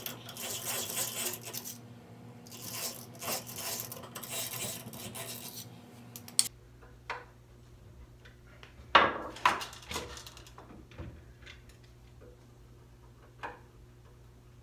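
Workshop handling sounds: wood scraping and rubbing for about six seconds, then, after an abrupt change in background, scattered clicks and a brief clatter of metal and wood about nine seconds in.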